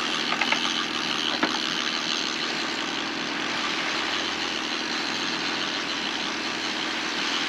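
Fishing boat's engine running steadily at low revs, with a few light knocks in the first second and a half.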